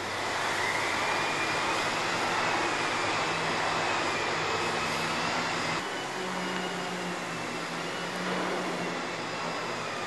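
Vacuum cleaner running steadily: a whining motor over a rush of air through the hose and wand, with a slight shift in the whine about six seconds in.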